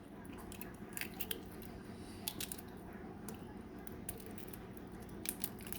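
Faint, scattered small clicks and crackles of a balut's eggshell being handled and picked open by hand.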